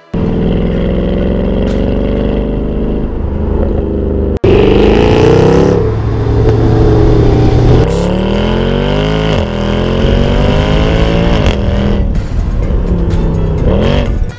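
Mercedes-AMG C63's 6.2-litre naturally aspirated V8, breathing through a custom exhaust, accelerating hard. Its note climbs and then drops back several times as it works through the gears.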